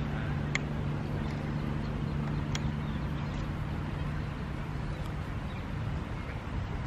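Outdoor ambience with a steady low motor hum, like a distant engine running, that fades out about four seconds in. Two faint sharp clicks sound early and midway.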